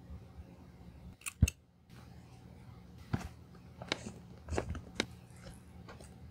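Hand-sewing needle and thread worked through the coated-canvas edge of a card holder: a handful of short, sharp clicks and ticks as the needle pierces the edge and the thread is drawn through. The loudest is a double click about a second and a half in.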